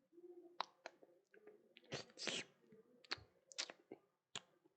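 Mouth sounds of sloppy eating: a series of sharp, wet lip smacks, with a longer wet smack about two seconds in.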